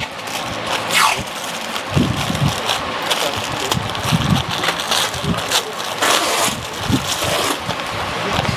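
Thin plastic packaging crinkling and rustling as hands open a packet and pull out a microfiber hair wrap towel, with many short crackles.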